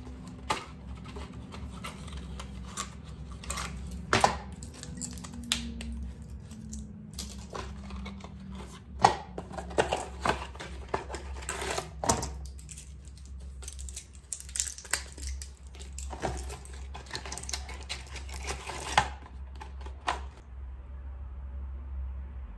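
Close handling of a cardboard supplement box and a plastic-and-foil blister pack of capsules: irregular crinkling, taps and clicks, busiest in the middle and stopping near the end, over a steady low hum.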